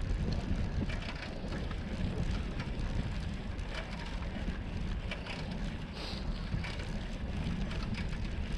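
A bicycle rolling over brick paving, with a steady patter of small rattles and knocks from the bike and its handlebar mount, under low rumbling wind noise on the microphone.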